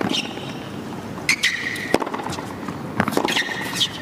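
Tennis rally on a hard court: sharp racket strikes and ball bounces roughly a second apart, with shoes squeaking on the court between the hits.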